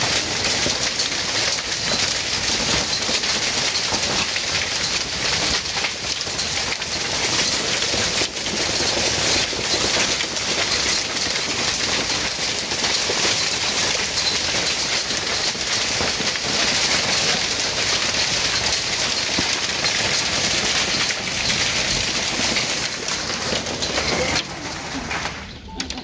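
Hailstorm: hail and rain pelting down hard in a dense, steady clatter on a roof and the ground. It falls away sharply about a second and a half before the end.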